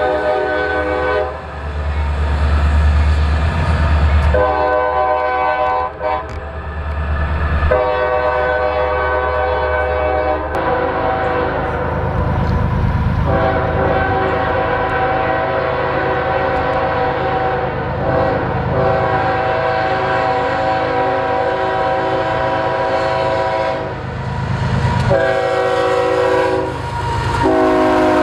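Diesel freight locomotive's multi-chime air horn sounding a series of blasts, one of them held for about ten seconds near the middle, over the heavy rumble of the locomotive passing close by. The rumble is heaviest in the first several seconds.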